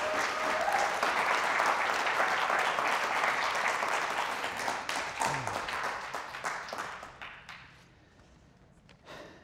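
Audience applauding, with a few short calls from the crowd near the start; the clapping dies away about seven or eight seconds in.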